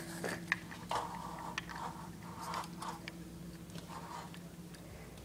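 Handling noises: a string of small clicks, taps and rustles, thinning out toward the end, over a steady low electrical hum.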